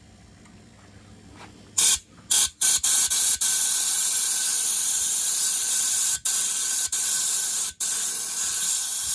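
Loud hissing spray from a pressurised nozzle: a few short bursts about two seconds in, then a long, nearly unbroken spray with a few brief gaps.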